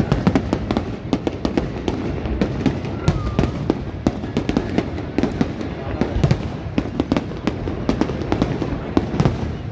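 Fireworks going off in a dense, irregular barrage of sharp bangs and crackles, several a second, over a constant low din.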